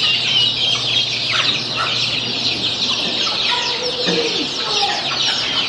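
A flock of baby chicks peeping all together, a dense, high, continuous chorus of short chirps, with a few lower calls about four seconds in.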